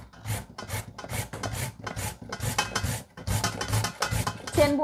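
A carrot being grated on a flat hand grater, with quick rasping strokes about four a second.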